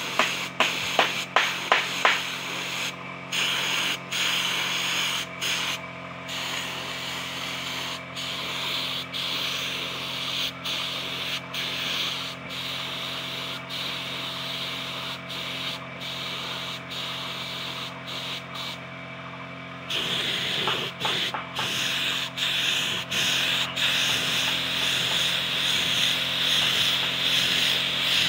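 Compressed-air spray gun hissing as it sprays wood finish, cutting out briefly again and again as the trigger is let go, with one longer pause about two-thirds of the way through. A steady low hum runs underneath.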